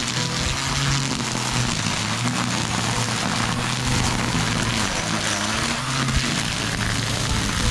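Corded electric string trimmer running steadily, its line whipping through tall grass and weeds with a low motor hum under an even hiss.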